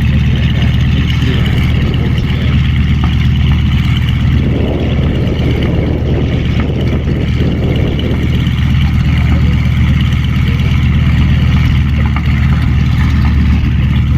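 Piston aircraft engine running steadily at low power on the ground, with a rougher swell of noise between about four and eight seconds in.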